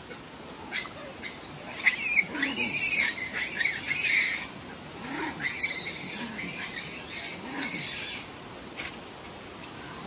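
Monkeys calling: a run of high, wavering screeches, loudest about two to four seconds in and thinning out near the end.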